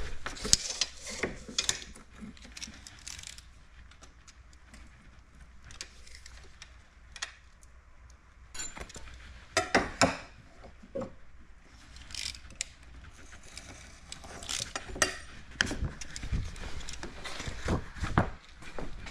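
Hand work with a steel tape measure and a strip of paint protection film: scattered clicks, rattles and rustles, busier in the last few seconds.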